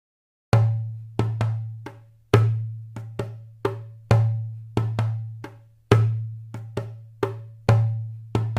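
Background music: a sparse beat of sharp percussive knocks, each over a deep bass note that fades away, starting about half a second in.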